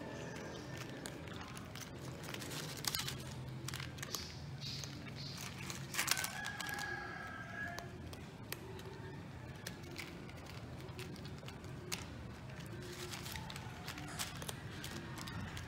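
Several cats eating dry kibble from plastic trays: scattered small crunching clicks. A rooster crows once about six seconds in.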